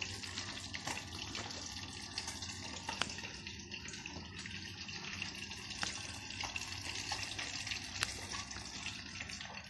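Steady rushing noise of running water, with a few faint clicks.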